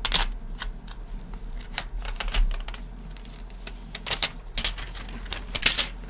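Clear plastic wrap crinkling and crackling as gloved hands peel it off a small camera body, in irregular sharp crackles and clicks, the loudest right at the start and near the end.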